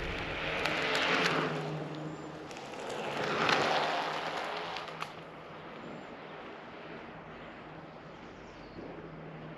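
Wind and road noise from riding an electric scooter, swelling twice in the first few seconds and then settling to a quieter steady rush with a faint low hum.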